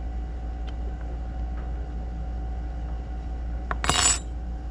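Small metal parts clinking and rattling briefly in a hand about four seconds in, over a steady low hum.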